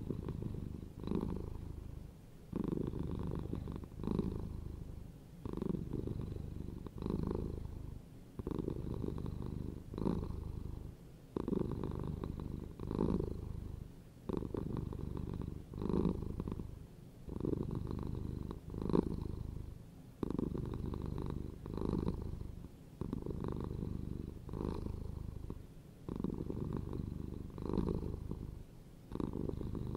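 A domestic cat purring, the rumble swelling and fading in a steady rhythm about every second and a half.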